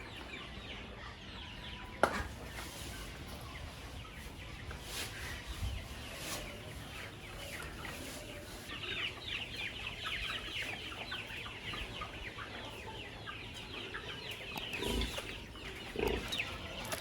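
Chickens clucking, with a dense chatter of short, high falling calls from about halfway through, and a single sharp knock about two seconds in.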